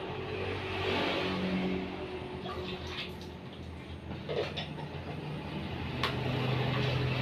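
A steady low motor hum in the background, with a few light taps and clicks in the middle and one sharp click about six seconds in.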